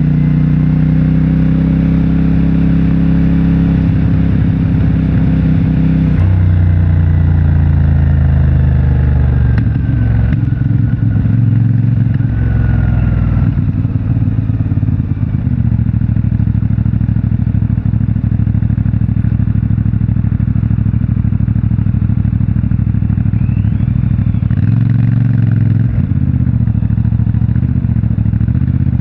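CFMOTO 450MT's parallel-twin engine on its stock exhaust, heard while riding. The engine note falls over the first dozen seconds, with a step about six seconds in. It then runs steadier and changes pitch again near the end.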